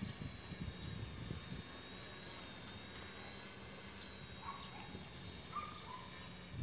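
Outdoor field ambience: wind buffeting the microphone with a low gusty rumble under a steady high hiss of insects. Two faint short chirps come a little past the middle.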